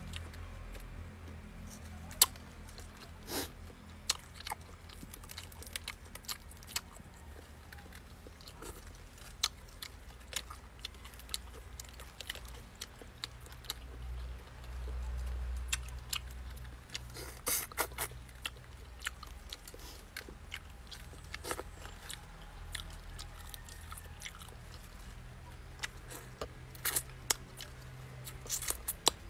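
Close-up eating sounds of a person chewing fish and rice eaten by hand: wet chewing with irregular sharp smacks and clicks, over a low steady hum.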